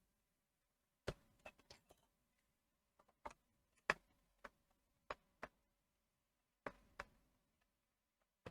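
Faint, irregular clicks and taps, about ten of them, from hands working on the plastic case and parts of a Fluke 175 multimeter opened up for a battery swap.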